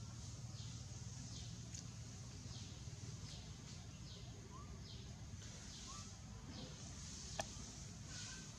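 Outdoor ambience: a steady low hum under a faint, high, falling call that repeats about twice a second, with a few faint short chirps and a single sharp click about seven seconds in.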